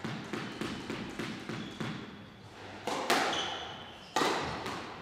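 A squash ball bounced repeatedly on the court floor with the racket, about four times a second. Then, about three seconds in, comes a loud, echoing racket-on-ball crack, and another about a second later as the serve is struck and returned.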